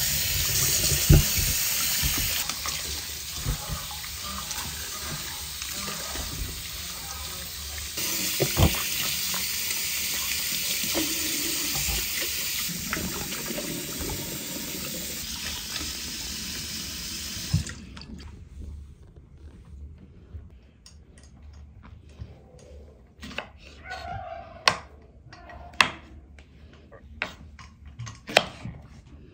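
Tap water running steadily into a bowl of bananas in a stainless steel sink as hands rub the fruit clean; it gets louder partway through and is shut off a little past halfway. Then comes a run of light knocks of a knife slicing bananas on a wooden cutting board.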